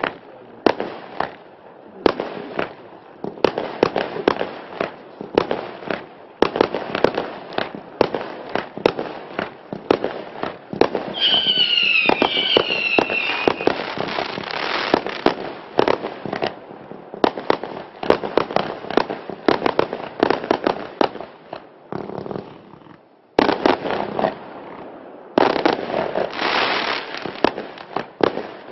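Klasek 'Fireworks show 536', a 536-shot F3 compound firework cake, firing shot after shot: a dense, fast run of launch thumps and crackling bursts. A brief falling whistle comes partway through, and the firing drops off briefly about three-quarters of the way in before picking up again.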